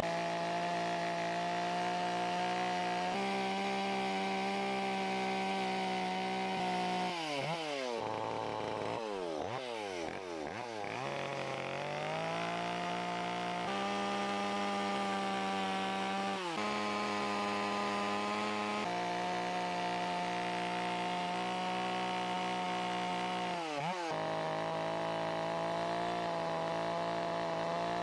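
Two-stroke carving chainsaw running near full throttle while cutting wood, its engine speed sagging and recovering as the chain bites. It drops and climbs back in pitch a few times, most clearly about a third of the way in.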